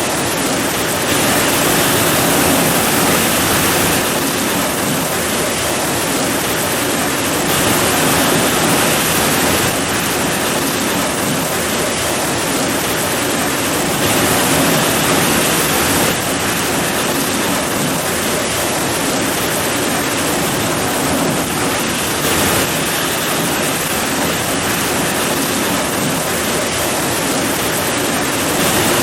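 Heavy rain falling in a steady, dense downpour.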